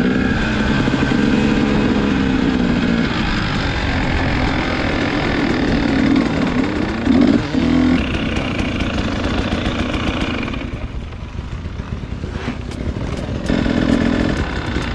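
Dirt bike engine running under the rider on a motocross track, rising and falling with the throttle. About ten seconds in it drops to a quieter, lower run as the bike slows, then picks up again briefly near the end.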